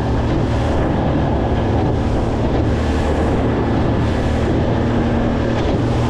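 A boat's outboard motor running steadily while the boat is underway, with wind buffeting the microphone and water rushing past the hull.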